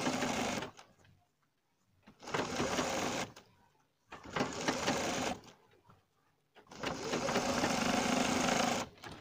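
Domestic sewing machine stitching in four short runs with silent pauses between them, the last run the longest at about two seconds, as it sews along the base of fabric piping.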